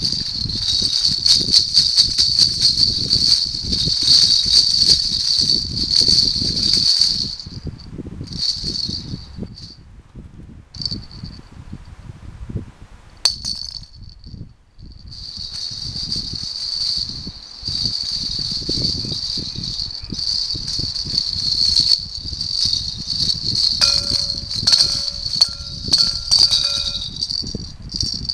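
Hollow plastic jingle balls with small bells inside, shaken together so they jingle and rattle continuously for about seven seconds, then fainter, with a sharp knock about 13 seconds in as one lands in a glass bowl. The jingling picks up again as the balls are handled and dropped into the bowl, with a short ringing tone a few seconds before the end.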